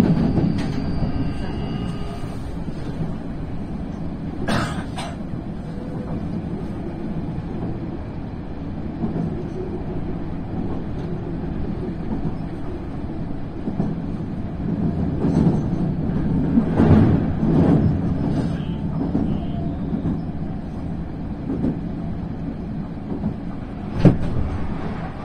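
Meitetsu local train running, heard inside the front car: a steady rumble of wheels on rail with occasional sharp knocks. The loudest knock comes about 24 seconds in, as a train passes close by on the next track.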